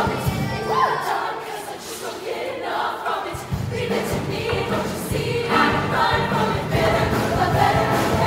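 Women's show choir singing in chorus over instrumental accompaniment. The low bass drops out about a second in and comes back with the beat about three and a half seconds in.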